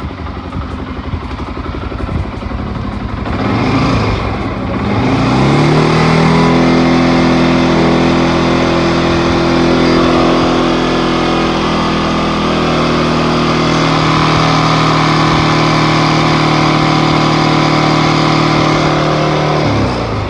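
CFMOTO CForce 500 ATV engine running, brought up from idle about four seconds in and held at a steady higher speed, then dropping back just before the end.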